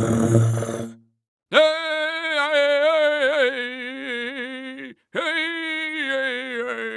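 A person's voice holding two long, wordless sung vowel notes with a wavering pitch, each about three seconds long, the second a little lower. A short, low, rough vocal sound ends about a second in.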